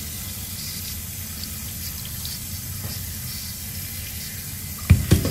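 Tap water running steadily onto sliced bamboo shoots in a stainless-steel colander in a sink, with a couple of sharp knocks near the end.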